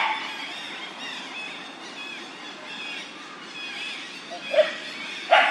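A dog barks once at the very start and twice in quick succession near the end, short sharp barks, over a steady background of small high chirping calls.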